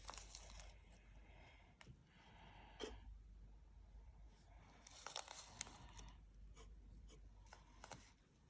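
Faint handling noises: soft rustling with a few light clicks and scrapes as small pieces are handled and set in place.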